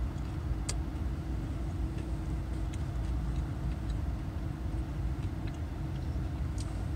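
Steady low rumble of a car's idling engine heard from inside the cabin. A few faint crisp crunches of chewing fried chicken sit on top of it; the sharpest comes about a second in, just after a bite.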